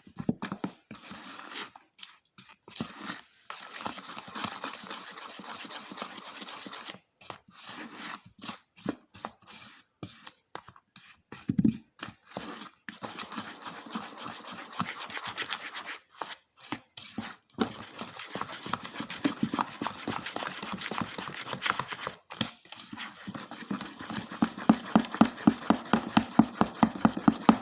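Spoon stirring cake batter in a mug: quick repeated scrapes and clinks against the mug, getting louder and more regular near the end at about four or five strokes a second.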